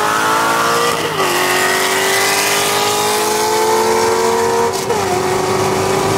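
Corvette V8 engines at full throttle in a street race, the engine note climbing through the gears. It drops at an upshift about a second in and again near five seconds.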